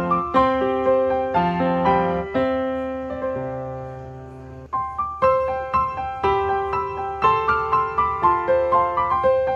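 Gentle background piano music playing a slow melody over held lower notes. Near the middle a long note dies away, then the melody picks up again.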